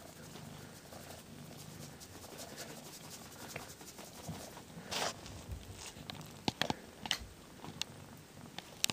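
Domestic cat grooming itself close to the microphone: soft rasping, rustling licks of its tongue on its fur, with a longer rustle about five seconds in and a few sharp clicks in the second half.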